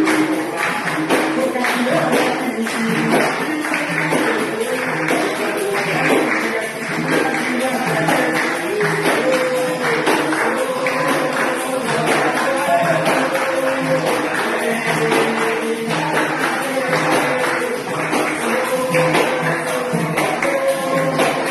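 Capoeira music: a berimbau with a pandeiro's jingles, playing a steady, fast rhythm of repeated strokes over held notes.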